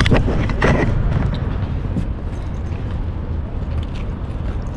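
Wind buffeting the handheld camera's microphone, a steady low rumble, with a few rustles and knocks in the first second as a canvas shoulder bag is handled.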